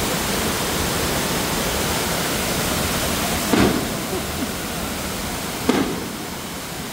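Large waterfall on the rain-swollen Mojaflores river: a steady, even rush of falling water, broken twice by a short bump, midway and near the end.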